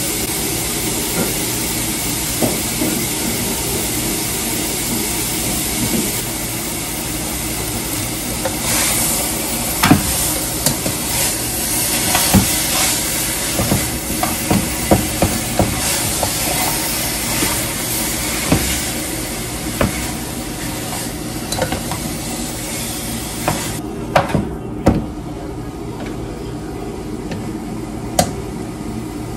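A utensil stirring and scraping in a pan on the stove, with a run of short clicks and knocks against the pan, over a steady hiss. The high part of the hiss drops away about four-fifths of the way through.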